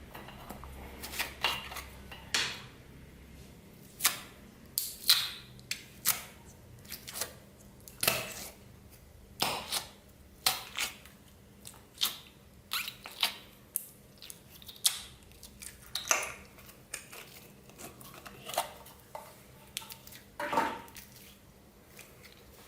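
Clear slime with plastic beads mixed in being squeezed and folded by hand, giving irregular sharp clicks and pops about once or twice a second.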